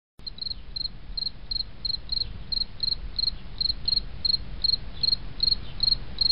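Cricket chirping in an even rhythm, about three chirps a second, over a low steady rumble; it starts abruptly.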